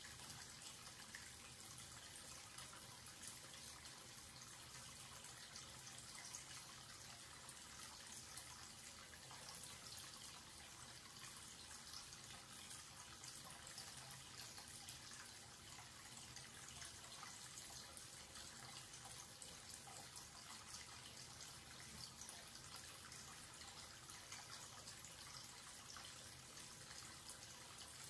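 Thin stream of tap water running from a wall-mounted spout into a washbasin and swirling down the open drain, faint and steady.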